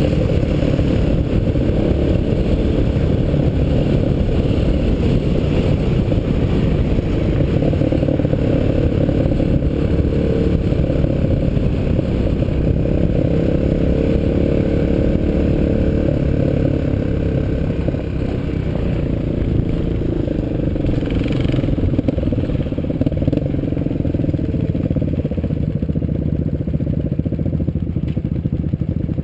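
Trail motorcycle riding along a rough dirt road: the engine running steadily at road speed, with clattering from the bike over the rutted track.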